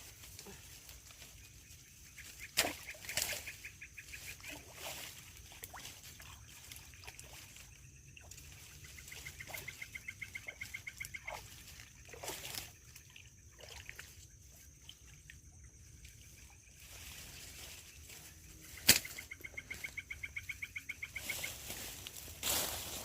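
Rapid trains of pulsed animal calls, three runs of about two seconds each, over a steady thin high whine, with two sharp knocks.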